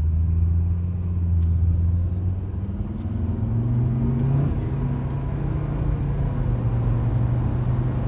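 Turbocharged Volvo S60 engine heard from inside the cabin as the car accelerates on the road. Its pitch rises for a couple of seconds, drops at an upshift about four and a half seconds in, then holds steady. With the boost leak at the throttle body fixed, it pulls right through.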